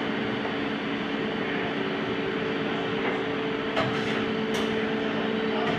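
Mori Seiki MV-40 CNC milling machine running with a steady mechanical hum, with a few light clicks about two-thirds of the way through.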